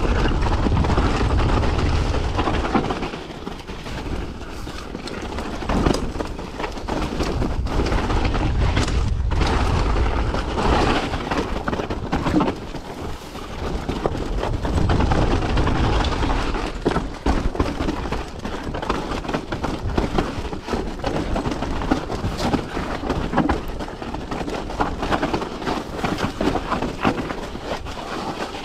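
Mountain bike descending a rocky, gravelly trail: tyres crunching over loose stone and the bike rattling with frequent sharp knocks, under a heavy, uneven rumble of wind buffeting the camera microphone.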